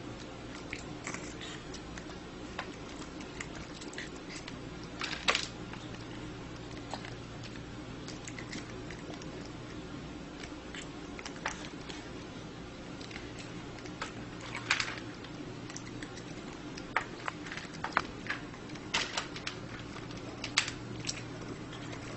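Scattered sharp clicks and taps from chopsticks and a plastic dish while a cat is hand-fed, a few louder ones in quick clusters toward the end, over a steady low hum.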